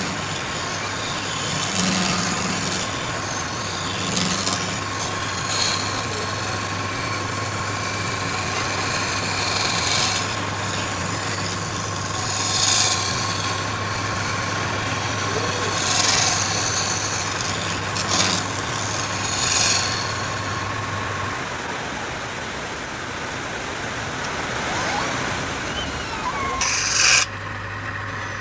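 A steady machine hum that stops about three-quarters of the way through, with short hissing bursts every few seconds and a louder burst near the end.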